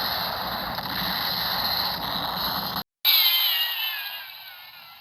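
A steady rushing noise cuts off abruptly, then about three seconds in a sudden loud crack is followed by a falling, whistling ricochet whine that fades away: a western gun-battle ricochet sound effect.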